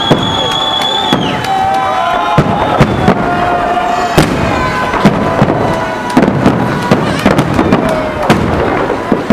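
Fireworks salute: aerial shells bursting in quick succession, many sharp bangs with a few long whistling tones and voices among them.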